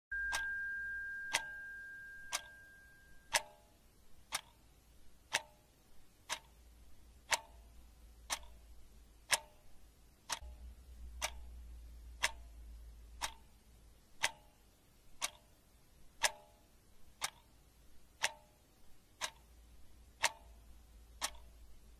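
Wall clock ticking steadily, about one tick a second. A steady high tone sounds during the first three seconds, over a faint low hum.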